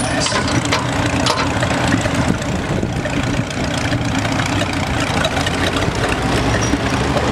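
Oliver Row Crop 77 tractor's six-cylinder engine idling steadily while it is hooked to the pulling sled.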